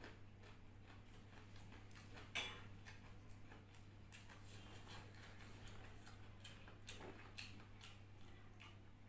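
Faint eating sounds: scattered soft clicks and smacks over a low steady hum, the sharpest click about two and a half seconds in.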